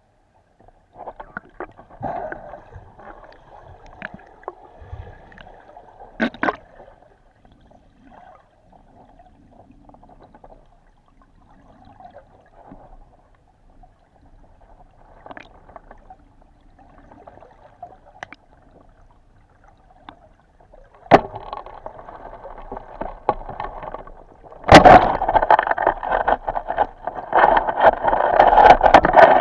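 Water rushing and gurgling against the camera, faint with scattered clicks at first, then loud about two-thirds of the way through.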